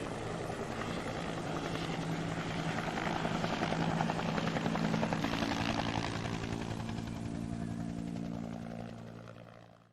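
Helicopter flying, its rotor beating rapidly over a steady engine tone, fading away near the end.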